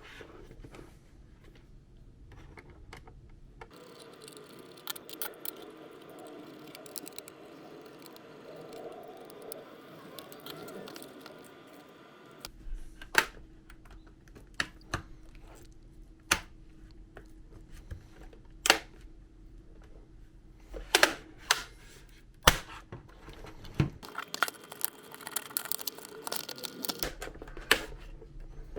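Hand work on a mechanical keyboard's plastic parts: scattered sharp clicks and knocks, several of them loud, mostly in the second half. For several seconds in the first half a steady hum runs under them.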